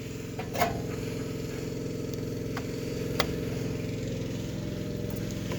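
A steady low buzzing hum, growing slightly louder, with a few light clicks and taps.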